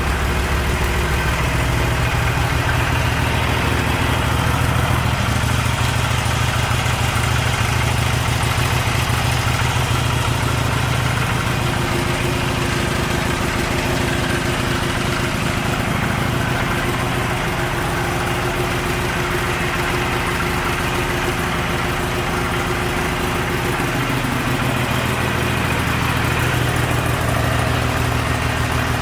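Harley-Davidson Sportster 883's air-cooled V-twin engine idling steadily.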